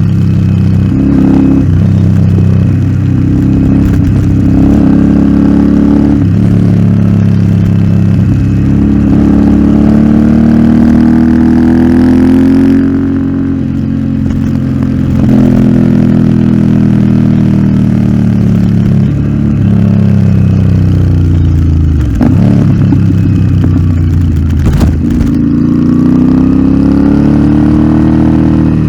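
Royal Enfield Interceptor 650's parallel-twin engine through an aftermarket Nuke exhaust, ridden hard with the revs rising and falling: the pitch climbs under throttle, drops off around the middle and dips briefly twice later on before climbing again.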